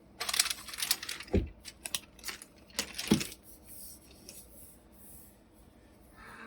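Cardboard HomePod box being handled and turned: scraping and rustling of packaging with a knock about a second and a half in and another around three seconds, then it goes quieter.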